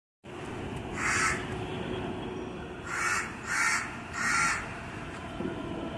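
A bird calling with four harsh caws, one about a second in and three in quick succession later on, over a low steady rumble.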